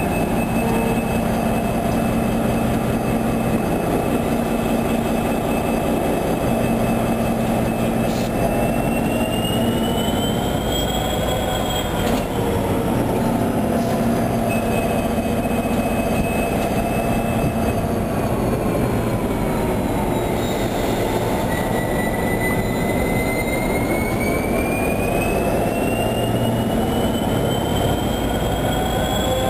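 Irish Rail 201 Class diesel-electric locomotive idling at a standstill: a steady engine rumble and hum, with a high whine that slowly rises and falls in pitch several times.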